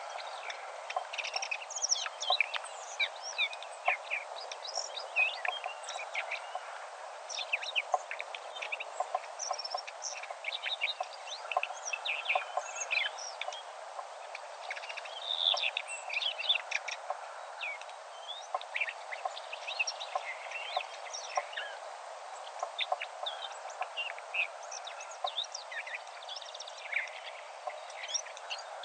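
Many songbirds singing and chirping at once, short quick calls overlapping without a break, over a steady background hiss.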